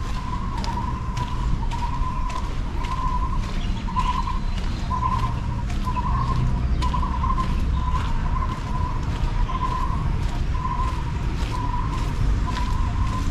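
Outdoor ambience: a bird calls one short, low note over and over, about one and a half times a second, over a steady low rumble.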